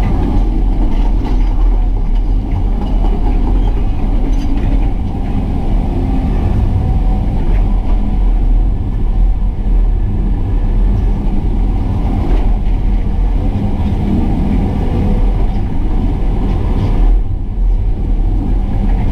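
Excavator's diesel engine running steadily at working speed, a loud low rumble, with a few faint knocks.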